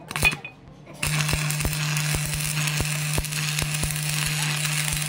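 Stick (arc) welding on a truck driveshaft flange: a few short clicks as the electrode is struck, then from about a second in the arc burns with a steady loud crackling hiss over a low hum.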